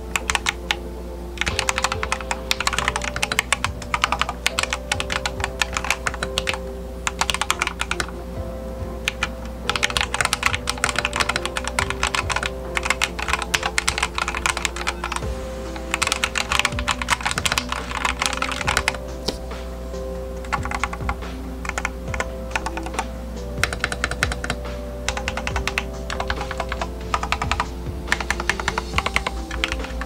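Typing on a darkFlash GD100 mechanical keyboard with yellow linear switches and CSA-profile PBT keycaps: fast runs of keystrokes in bursts of a few seconds, broken by short pauses. There is little case ping, and the partly lubed stabilizers make hardly any friction noise.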